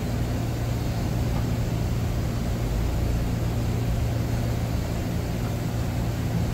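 Steady low electrical hum with an even fan-like rushing from powered machinery running nearby, unchanging throughout.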